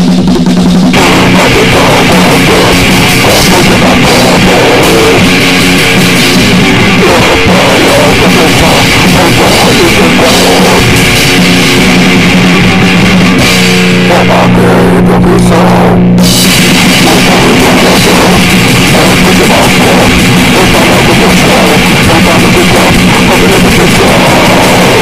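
Loud, heavily distorted noisegrind recording: a fuzzed guitar drone over a pounding drum kit and cymbals. The treble briefly thins out about fifteen seconds in.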